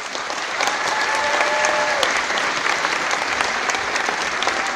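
Audience clapping and applauding steadily, with one voice cheering out above the clapping during the first two seconds.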